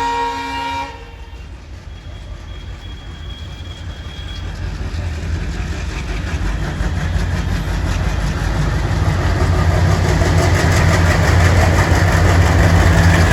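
Twin ALCo WDG-3A diesel locomotives: a horn blast that cuts off about a second in, then the engines chugging under power and growing steadily louder as the train accelerates away.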